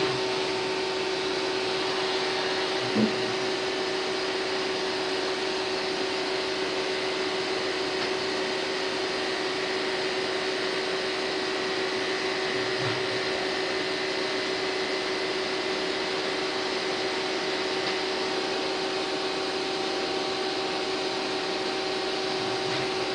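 CNC machining center running while it taps a hole: a steady mechanical hum and hiss with a constant tone, and a brief louder sound about three seconds in.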